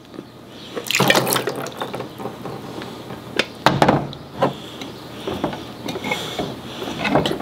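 Water poured from a toy blender's clear plastic jar into a small plastic cup. Partway through come several sharp clicks and knocks of hard plastic as the jar is set back onto its base, and more as the lid is handled near the end.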